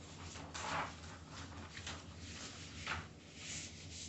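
Sheets of drawing paper rustling and sliding as they are handled, with the loudest swishes about a second in and again near three seconds.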